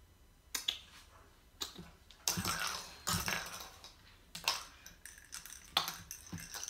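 A puppy chewing and mouthing a toy: irregular clicks and crunching scuffs, some sharp, some lasting about half a second.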